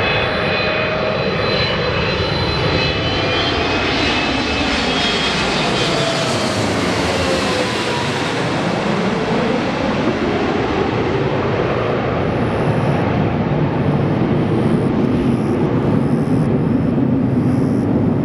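Boeing 777-300ER's twin GE90-115B turbofans passing low overhead on landing approach. A whining whistle of fan tones falls in pitch as the jet passes over, about seven seconds in, and gives way to a broad rumble as it moves away.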